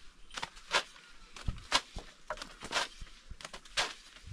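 A long thin wooden rolling pin knocking and rolling on a round wooden board as thin flatbread dough is rolled out and lifted, with light sharp knocks about twice a second.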